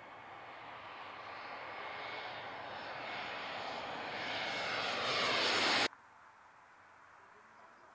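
Large airliner's jet engines passing low overhead, growing steadily louder with a whine that glides downward as it goes by, then cut off suddenly about six seconds in.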